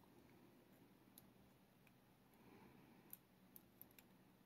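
A few faint, sharp clicks of small metal lock pins and tools being handled: one about a second in, then several close together near the end.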